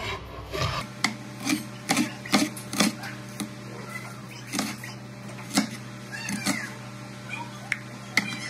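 Kitchen knife chopping an onion on a wooden cutting board: a run of sharp knocks as the blade strikes the board, about two a second at first, then fewer and more spread out.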